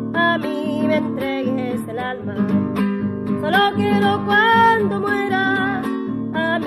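Music: acoustic guitar playing, with a melody that bends like singing over steady chords.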